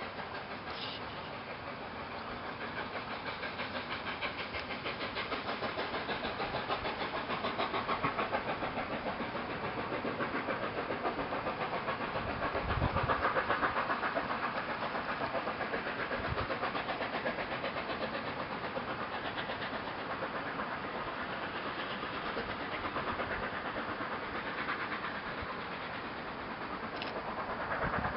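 A long passenger train running past, giving steady wheel-on-rail noise with a quick, even clatter that swells a little about halfway through.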